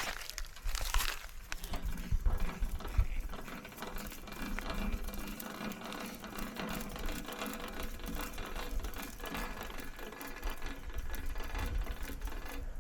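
A small bottle jack being set and worked under a mini skid steer, making a continuous run of quick small clicks and metal rattles.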